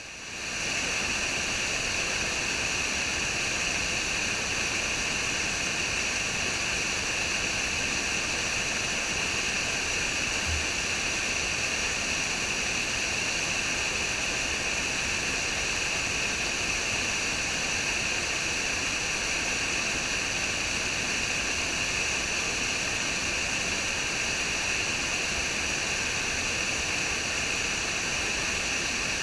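Waterfall rushing steadily, a continuous hiss of falling water that swells up over the first second and then holds level.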